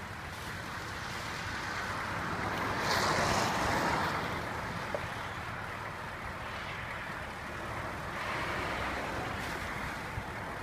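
Chevrolet Suburban GMT400 driving slowly off-road, its engine running under a steady rush of wind on the microphone, swelling louder about three seconds in.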